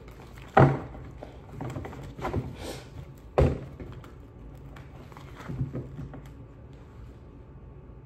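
Tarot cards being shuffled by hand, light riffling and ticking of the card edges, with two sharp thumps about three seconds apart, the loudest sounds here.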